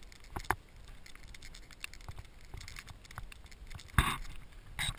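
Footsteps and rustling of a hiker walking a wet forest trail, with scattered small clicks and knocks from gear. A sharp knock about half a second in and a louder brushing rustle about four seconds in.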